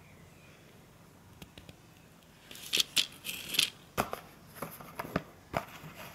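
Foil-backed plastic blister pack of tablets crinkling and clicking as it is handled and set down. A run of sharp crackles starts about two and a half seconds in, after a quiet stretch, and dies away shortly before the end.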